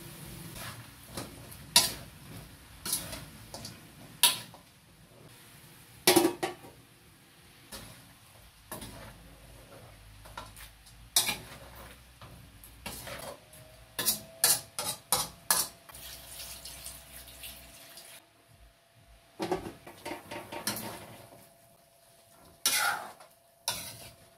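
Metal spoon clanking and scraping against a metal wok as chicken feet are stirred: irregular knocks, several in quick runs.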